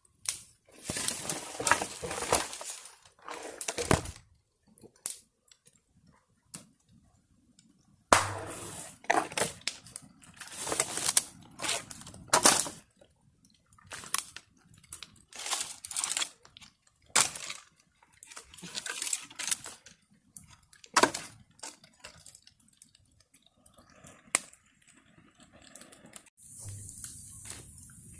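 Bonfire crackling and popping in irregular bursts. A steady hiss sets in near the end.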